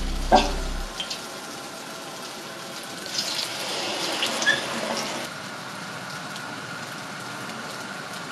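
Pettole dough frying in a wide pan of hot oil: steady sizzling, with a cluster of louder crackles and spatters between about three and five seconds in. A tail of background music fades out about a second in.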